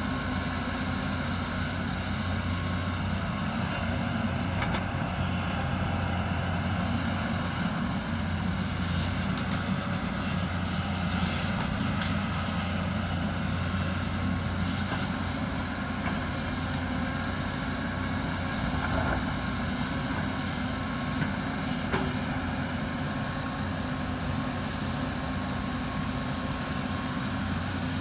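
Hyundai 220 excavator's diesel engine running steadily under working load, with a few faint knocks, around the middle and again later on.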